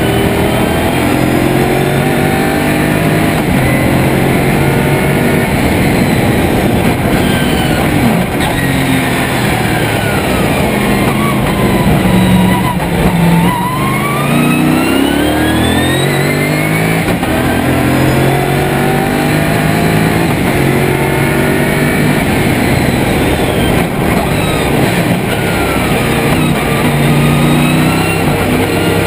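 Lotus Esprit V8 race car's engine from inside the cockpit at racing speed, revving up through the gears in repeated steps. About halfway the revs fall away for braking and downshifts, then climb again as it accelerates out of the corner.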